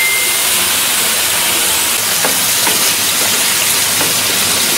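Meat and yuca frying in hot oil on a metal plancha: a steady sizzle, with a few small pops of spitting oil.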